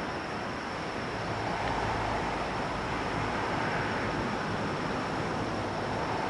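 Ocean surf: a steady wash of waves breaking on a beach, swelling a little about two seconds in.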